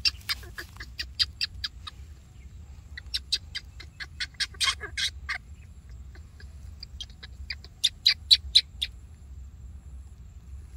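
Baby monkey giving short, high-pitched squeaks in quick runs of several a second, in three bouts with short pauses between them.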